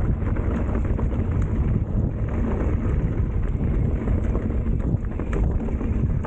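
Wind buffeting the microphone over the rumble of an Ibis Ripley AF mountain bike rolling over bumpy dirt singletrack, with frequent small clicks and rattles from the bike.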